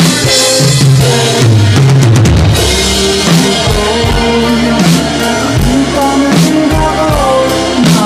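Instrumental passage of an indie-rock song, with an electronic drum kit played along to it: bass drum, snare and cymbal hits over sustained bass and melody notes, with a quick run of hits about two seconds in.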